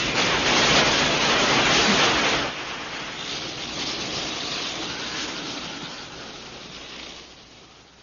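Film sound effect of the DeLorean's fire trails hissing and burning on the street after it vanishes through time. It is loud for about two and a half seconds, then drops and dies away.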